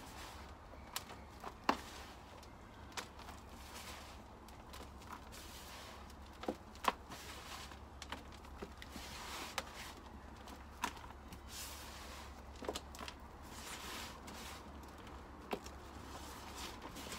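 Gloved hands rummaging through soil in a wheelbarrow to pick out potatoes: about a dozen irregular sharp clicks and knocks over a faint, steady low background.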